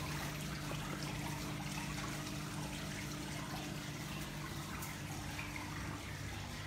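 Water trickling steadily from an indoor decorative waterfall, with a low steady hum underneath.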